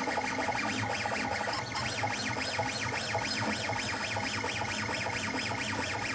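3D printer's stepper motors whining in quick rising-and-falling sweeps, about three or four a second, as the print head moves back and forth during a test print. Background music plays underneath.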